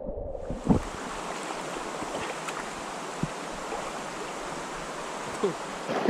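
A muffled underwater sound opens out, within the first half second, into a shallow mountain stream running steadily over stones. A few soft knocks come through the rushing water.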